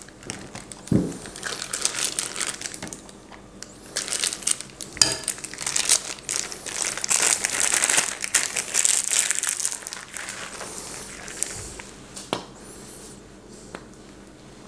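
Plastic piping bag crinkling in irregular bursts as it is squeezed to pipe pastry cream, dying away after about ten seconds. A light knock comes near the end.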